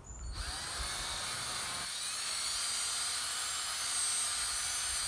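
Electric drill starting up with a rising whine about a third of a second in, then running steadily at speed, driving a white 3M sanding disc on a Velcro backing pad against a plastic headlight lens.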